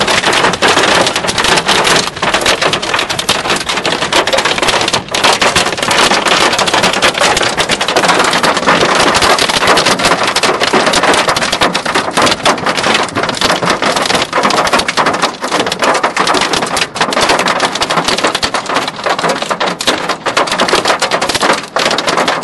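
Hailstones pelting a car's body and windscreen in a heavy hailstorm, a loud, steady, dense rattle of countless small impacts.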